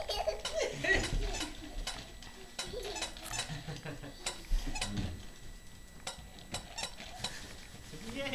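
Pull-along toy puppy clicking and clattering as it is dragged on its string across a hard kitchen floor, a steady run of clicks about three or four a second. A small child makes brief babbling sounds about a second in and again around five seconds.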